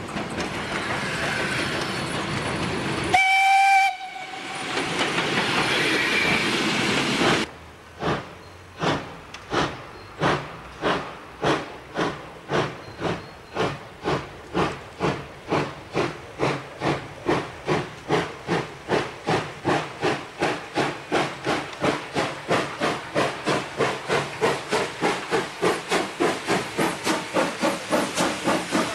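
Steam locomotive starting a passenger train: steam hissing, then one loud whistle blast of about a second. After that comes its exhaust chuffing, the beats slowly quickening from about one to about two and a half a second as the train gathers speed.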